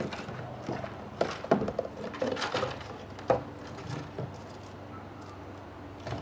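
Eastern grey squirrel feeding: irregular light taps and scrapes, with a few sharper knocks, over a faint steady low hum.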